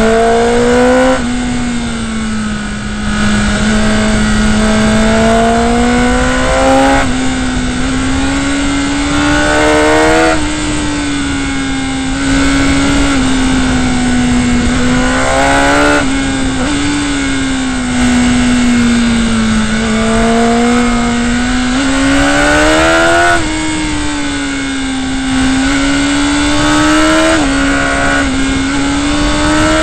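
Motorcycle engine under way, its pitch climbing and easing repeatedly through the corners, with several sudden drops in pitch as the rider shifts gears. A steady rush of wind and road noise runs underneath.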